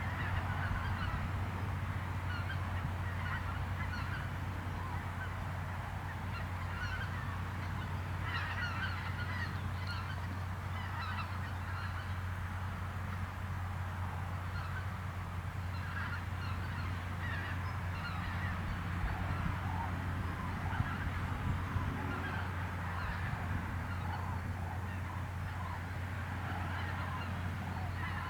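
A large mixed flock of greylag geese and common cranes calling, with many short honking calls overlapping continuously. A steady low rumble runs underneath.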